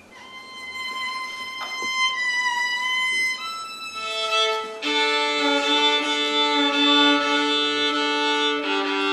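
Violin played solo: a long high note with vibrato, then from about four seconds in, lower notes sounding together in sustained chords.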